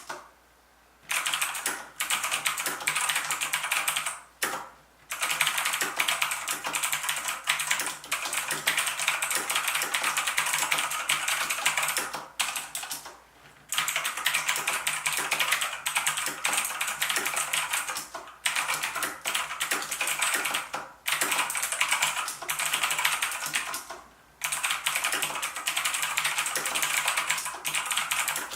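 Typing on a MARVO KG923 mechanical keyboard with clicky blue switches: fast, dense runs of key clicks broken by a few short pauses.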